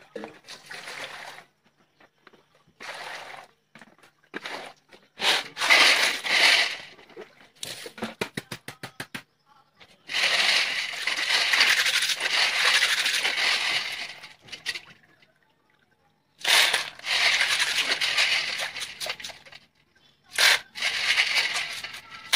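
Live river snails being scrubbed by hand in water in a steel basin: shells scraping and clattering against each other and the metal, with water splashing. The sound comes in several bursts of a few seconds each, with a quick run of clicks partway through.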